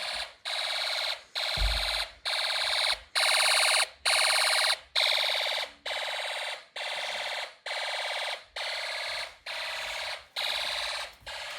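Fire alarm horn sounding in evenly repeating pulses, about three every two seconds, set off by a manual pull station being pulled down.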